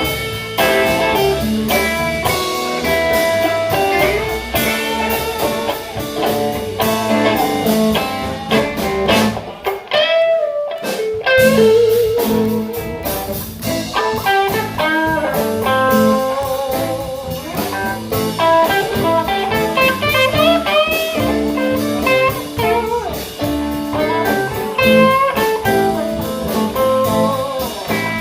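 Live blues band playing: electric guitars, bass and drums. The sound briefly drops away about ten seconds in.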